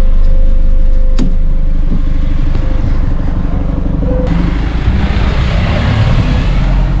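Shuttle minibus engine running with a steady low rumble while passengers step down out of it. There is a sharp click about a second in, and from about four seconds in a rushing hiss joins the rumble.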